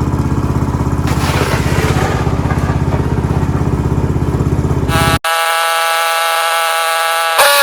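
Ariens 624E snowblower engine running steadily under load in dense, heavy snow, with a fast even pulse. About five seconds in it cuts off abruptly, and a steady chord of held high tones follows.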